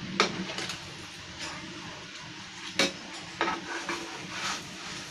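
A metal spatula clinking and scraping on a frying pan while an egg-coated chapati is folded over, with a faint sizzle of frying underneath. A few sharp clinks stand out, the loudest just after the start and two more a little past halfway.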